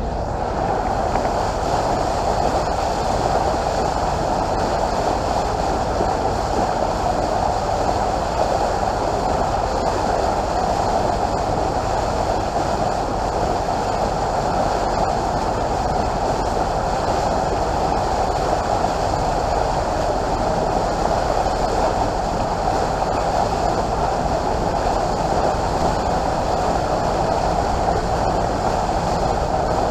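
Small passenger launch under way: a steady drone of its engine and of water rushing past the hull.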